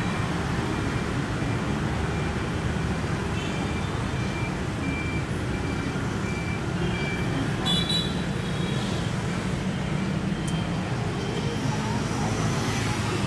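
Steady street traffic noise, with a string of faint short high beeps about four to seven seconds in.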